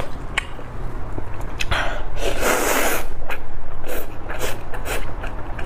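A person slurping spicy instant noodles, with the longest, loudest slurp about two seconds in and shorter slurps and wet mouth clicks of chewing around it.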